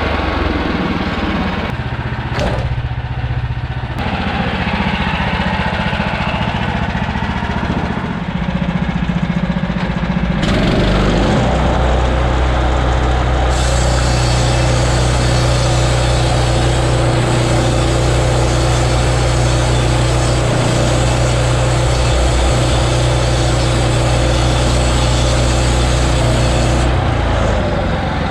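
Small gas engine of a portable bandsaw sawmill running steadily. About eleven seconds in its note settles lower and steadier, and a hiss joins a couple of seconds later.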